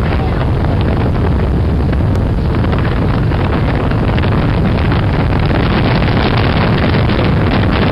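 Heavy wind buffeting the microphone aboard a fishing boat running at speed, over the steady drone of its twin outboard motors and the rush of water.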